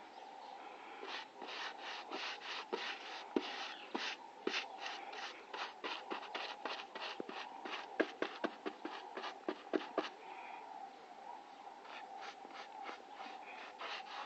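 Repeated rubbing or scraping strokes on a surface, about three a second, over a steady hum. The strokes pause about ten seconds in, then start again.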